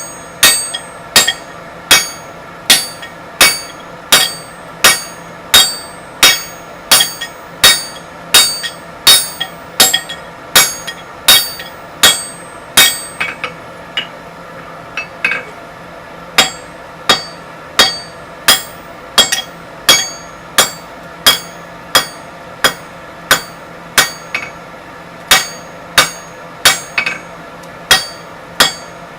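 Hammer blows on hot 25 mm square mild steel on an anvil, the anvil ringing after each strike. The blows come steadily at about one and a half a second, with a short lull of a couple of lighter hits about halfway through.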